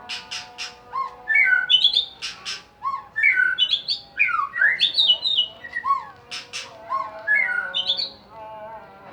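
White-rumped shama (murai batu) singing a fast, varied song: groups of sharp clicks, short rising whistles and quick descending runs of notes, repeated in phrases.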